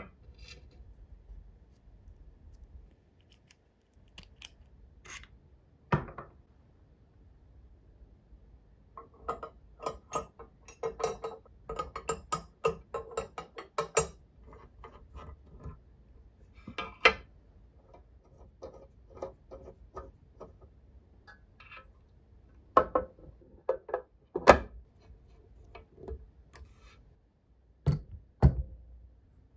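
Metal parts of a full-metal model engine kit handled and fitted together with small tools: scattered light clicks and clinks, a run of quick small clicks about a third of the way in, and several sharp knocks as parts are set down, the loudest near the end.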